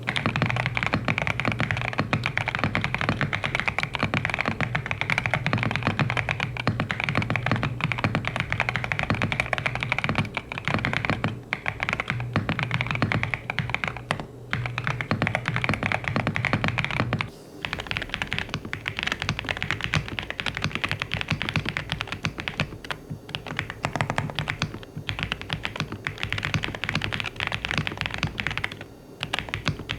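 Fast, continuous typing on a mechanical keyboard, a steady stream of key clicks. About seventeen seconds in the sound breaks off briefly and the typing goes on with a different tone, likely another keyboard being compared.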